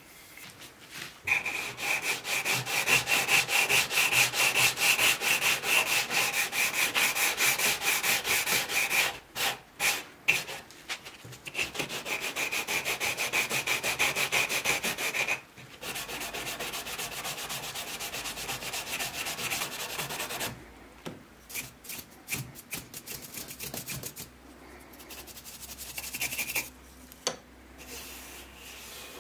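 Sandpaper rubbed by hand back and forth over the wooden body of an old Weiss & Sohn hand plane, in fast, even strokes. The sanding stops briefly twice, then turns quieter and more broken in the last third.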